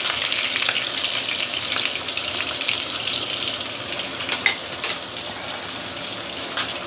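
Turmeric-coated black pomfret frying in shallow oil at medium-high heat: a steady sizzle with scattered sharp pops and crackles, easing off slightly toward the end.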